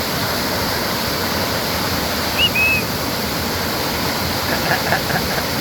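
Steady rushing of a waterfall and creek, with a brief high chirp about midway.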